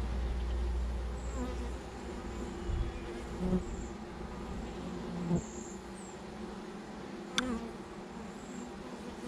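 Honeybees buzzing steadily in an open hive, with a low rumble in the first couple of seconds and a sharp click about seven seconds in.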